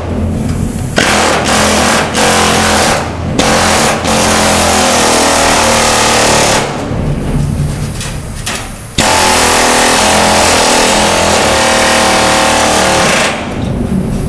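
Unmuffled pneumatic air chisel hammering through automotive sheet metal in long, loud bursts, with brief pauses about a second in and about three seconds in, a weaker stretch in the middle, and stopping near the end.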